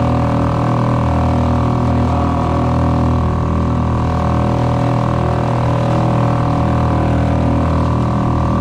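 Small 2-horsepower outboard motor running steadily under way, one even, unchanging engine note.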